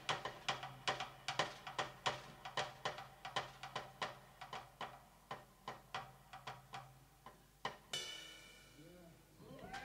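Drum kit solo: rapid, irregular stick strokes with sharp, clicky attacks. About eight seconds in the playing stops on a final stroke that rings on and fades away.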